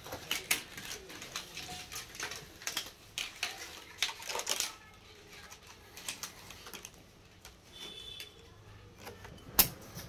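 Stiff PET plastic strapping being handled and threaded into a pneumatic strapping tool, making a run of light clicks and rattles. One sharp click near the end is the loudest sound.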